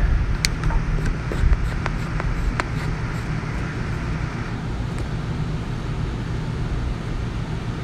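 A few clicks and knocks as a camera is handled and set onto its stand, over a steady low hum that runs throughout.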